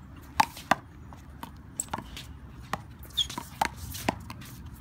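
Rubber handball in a one-wall handball rally: a quick series of sharp smacks as the ball is hit with gloved hands, strikes the wall and bounces on the concrete court. The loudest two come about half a second in.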